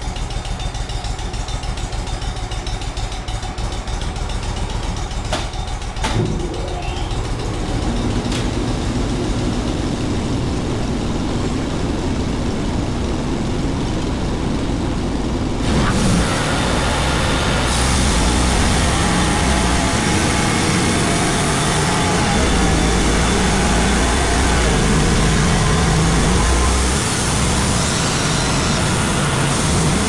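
Wood-Mizer LT35 sawmill running, with a knock about six seconds in and a steady higher engine tone from about eight seconds in. From about halfway the band blade is cutting through a chestnut oak log as the saw head moves along it, a dense rushing noise over the engine.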